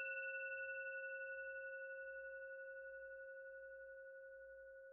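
A single bell-like chime note with a few higher overtones, the last note of a closing jingle, ringing out and fading slowly with a slight waver.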